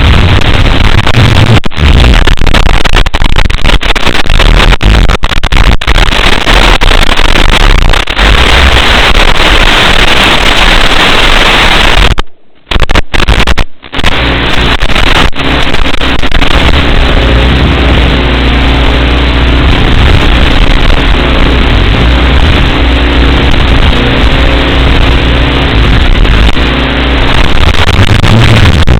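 Loud, steady static hiss with a low buzz underneath, cutting out briefly twice near the middle. This is typical of the audio channel of an analog FPV video feed from an Inductrix FPV micro drone.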